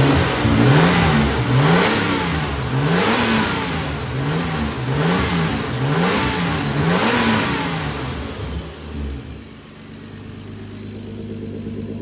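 Turbocharged BMW M50 inline-six engine revved again and again in quick blips, about one a second, the pitch rising and falling each time, then falling back to a quieter steady run about nine seconds in. It is running cleanly without the no-start bang, now that a genuine BMW cam sensor is fitted.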